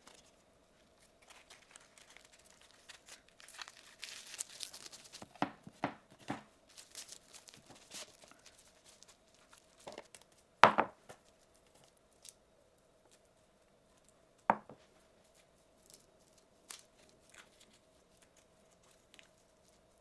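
Kitchen handling sounds while food is prepared: a spell of rustling, a quick run of light knocks, then two sharper clacks, one near the middle and one a few seconds later, over a faint steady hum.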